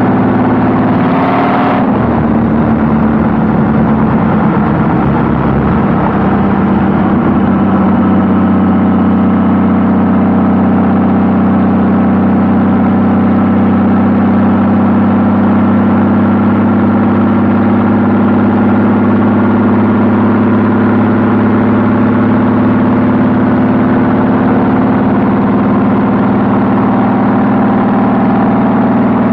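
Honda Valkyrie's 1520 cc flat-six engine running through Cobra six-into-six exhaust pipes while the bike is ridden. The note changes briefly in the first two seconds, then holds steady and loud.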